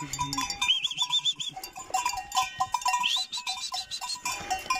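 Bells on a small group of calves clanking irregularly as the animals walk along a path, with soft hoof steps.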